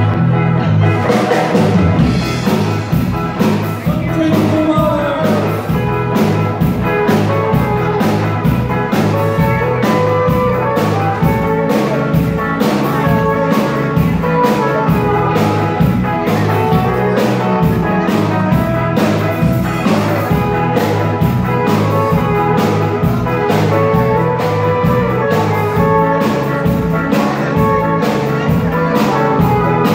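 Surf rock band playing live: electric guitars over a drum kit, with a steady driving beat and a stepping low bass line.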